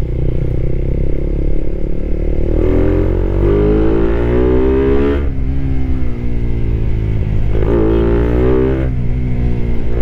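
Suzuki Raider 150 Fi's single-cylinder four-stroke engine, fully warmed up, accelerating hard under load. The revs climb, fall back sharply at an upshift about five seconds in, climb and fall back again shortly before the end, then start rising once more.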